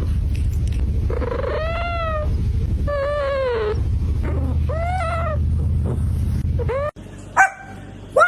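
A cat meowing repeatedly, with about five drawn-out rise-and-fall meows over a steady low rumble. The sound breaks off suddenly about seven seconds in, and two short meows follow.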